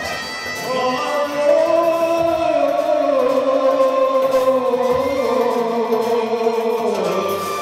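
Live music through a PA: a male singer holds one long, wavering note into a handheld microphone over instrumental backing. The note starts about a second in and slowly falls in pitch before it ends.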